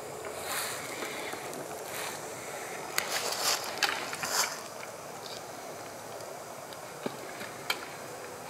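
Rustling and scraping as a tree climber moves about in a tree, loudest for a second or so just past the middle, with two sharp clicks near the end.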